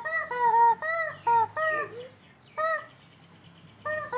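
Yellow rubber squeaky chicken toy squeezed over and over, giving short honking squawks: five quick ones in the first two seconds, then two more spaced out after a pause.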